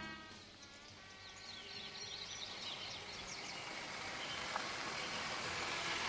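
Outdoor ambience: birds chirping over a steady background hiss that slowly grows louder, with music fading out in the first second.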